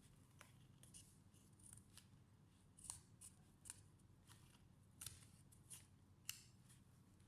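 Faint, irregular small clicks and light scrapes of hand tools on laptop parts during a repair.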